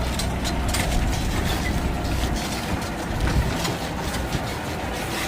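Tractor engine running while pulling a hayride wagon, with the wagon rattling and clattering. The low engine rumble eases a little about halfway through.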